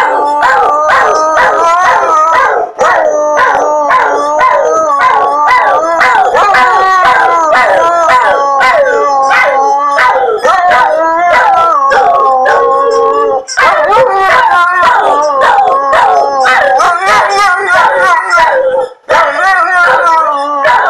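Two dogs howling together, a large white husky-type dog and a small black dog, their long wavering howls overlapping and sliding in pitch. The howling breaks off briefly three times, about three seconds in, about halfway, and a couple of seconds before the end.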